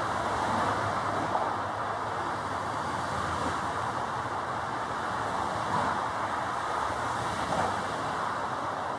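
Steady rushing outdoor background noise with a few faint knocks.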